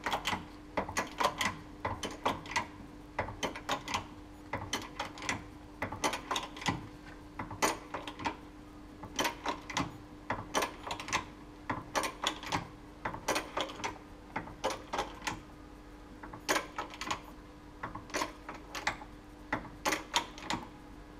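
Jack clicking repeatedly, about two or three sharp clicks a second, often in pairs, as it raises one side of a Mercedes Sprinter 313 van. No knock, noise or creak comes from the freshly replaced shock absorber as the suspension unloads, the sign that the new shock is sound.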